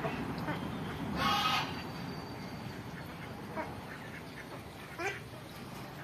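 Domestic ducks quacking: one loud quack about a second in, then a few fainter calls.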